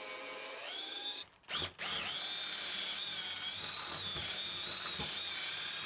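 Cordless drill boring holes into the end grain of a wooden block. The motor whine rises as it speeds up just under a second in, stops briefly with a short burst at about a second and a half, then runs steadily.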